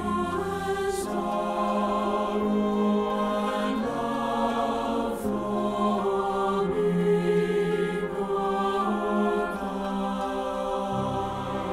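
Choir singing a slow hymn arrangement with piano accompaniment, in long held chords that shift every second or so.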